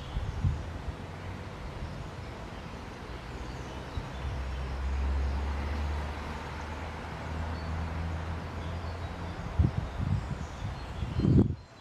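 Electric passenger train approaching, a low steady hum that swells about four seconds in and holds for several seconds, with a few low thumps near the end. Birds chirp faintly in the background.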